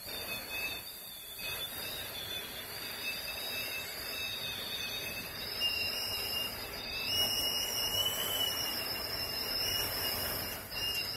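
Hurricane wind whistling at a closed window: several high, wavering whistles that slowly drift in pitch over a steady rush of wind.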